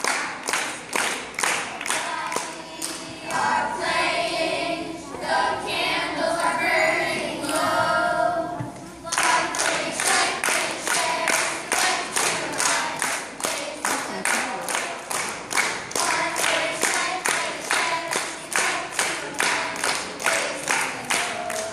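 Children's choir singing over steady rhythmic hand clapping, about three claps a second. The singing is strongest in the first half and fainter later, while the clapping keeps going.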